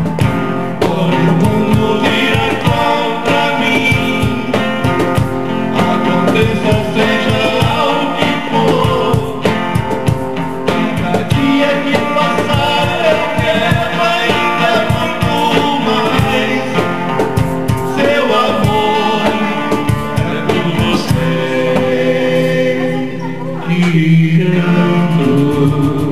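A live band playing a slow song: a male voice singing over guitar, with a steady beat.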